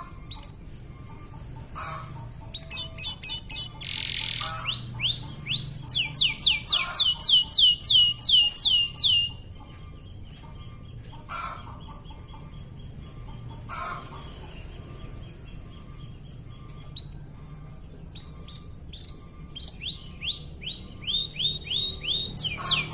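Domestic canary singing: long runs of fast trills, each a rapid series of high notes sweeping downward, the first from about two seconds in to nearly halfway, a second starting again near the end, with scattered single chirps between.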